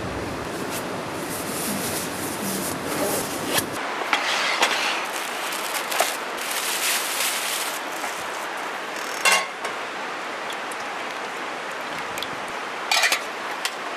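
Cloth rustling as a soft padded item is handled and folded, then crinkling of a thin plastic bag being opened and unwrapped. Then two sharp metal clinks, about a second after the middle and again near the end, as a brass pot is handled and set on a portable gas stove, over steady outdoor noise.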